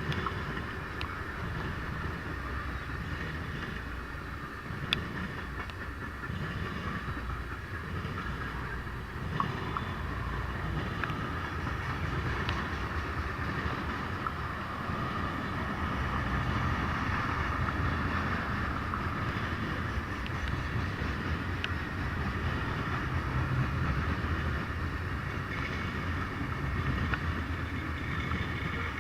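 Freight train rolling past: a steady rumble of railcars on the rails, with a few sharp clicks.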